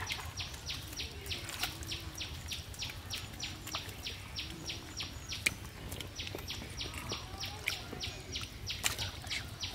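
A steady, even run of short high chirps, about four a second, from a calling animal in the open air.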